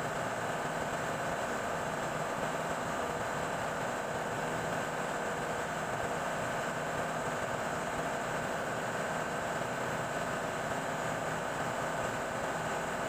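Ship's engine-room machinery running: a steady drone with a constant hum in it, no change throughout.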